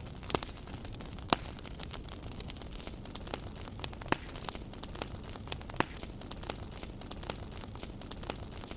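Wood campfire crackling: irregular sharp pops and snaps of burning wood, two louder pops about a second in and just before six seconds, over a steady low background noise.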